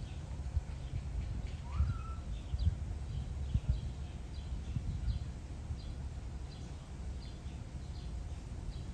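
Small birds chirping, short high notes repeating about twice a second, with one rising whistled call about two seconds in, over a steady low rumble.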